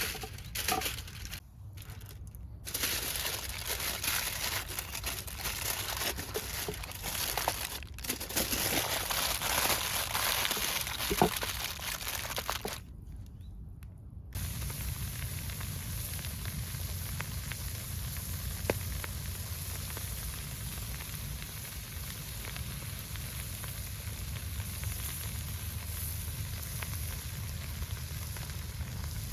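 Campfire crackling and hissing, with scattered sharp pops over an even sizzle. About 13 seconds in it breaks off briefly, then gives way to a steadier, even rushing hiss with a low rumble underneath.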